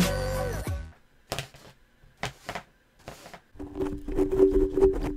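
Music with a beat fades out about a second in, then a broom is swept in short, scratchy strokes, a few single brushes and then a quicker run of them near the end, over a steady low hum.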